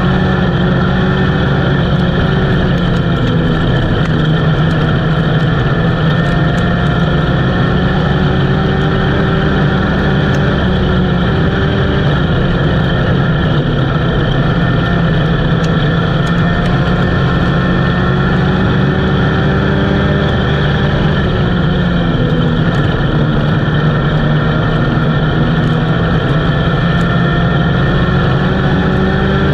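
Race car engine running hard under racing load, heard from inside the cockpit, its pitch rising and falling slightly as the throttle changes through the turns.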